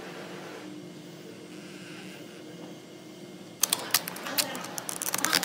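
A steady low hum, then about three and a half seconds in a sudden, louder run of sharp crackles: thin vinyl wrap film being pulled and crumpled away from a car's side-view mirror.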